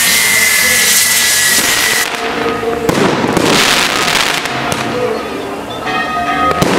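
Fireworks going off: loud hissing with a thin whistle for about two seconds, a sharp bang about three seconds in followed by more hissing, and another crack near the end.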